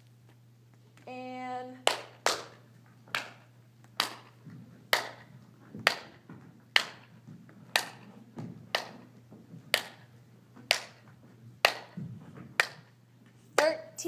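Hand claps keeping a slow, steady beat, about one clap a second, over a steady low hum. A brief held vocal note comes just before the claps begin, and a voice starts near the end.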